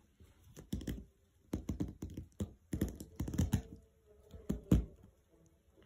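A Corgi/Chihuahua mix dog pawing and biting at a plastic net bag of small tennis balls: a run of irregular clicks, taps and crinkles from the packaging, loudest near the end.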